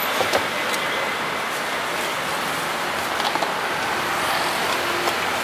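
Steady street traffic noise, an even rushing hiss, with a few faint light clicks from the stall.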